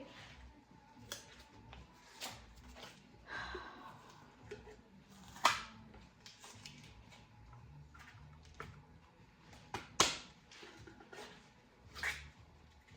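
Scattered sharp metallic clinks and knocks of hand tools and bolts against engine parts during engine teardown, about five of them spread out, the loudest about five and a half and ten seconds in, with a brief rustle in between.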